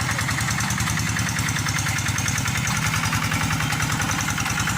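Paddy-field tractor engine running steadily with a fast, even beat while plowing a wet rice field.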